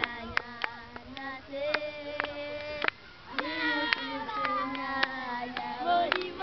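Children singing a song with long held notes, with sharp hand claps breaking in here and there.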